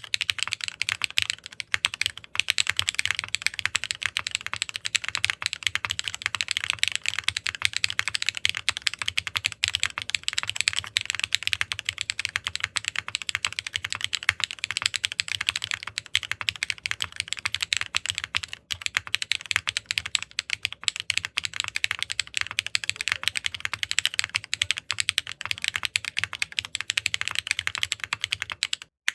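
Custom mechanical keyboard being typed on fast and without a break, keystrokes too dense to count. It is a Sensy Supernova 60 with a 4 mm PEI plate, a PEI midframe, HMX PEI Bumblebee linear switches in a dampened top mount and DCS keycaps, built for an all-PEI clack.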